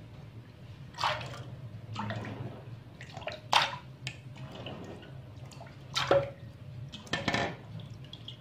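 Water splashing and dripping as handfuls of soaked seeds are lifted from a steel bowl of water and dropped into a steel pot, in several separate, irregular splashes.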